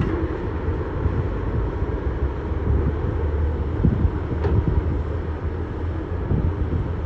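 Heavy diesel earthmoving machinery running steadily under load, a deep continuous rumble, with a single sharp knock about four and a half seconds in.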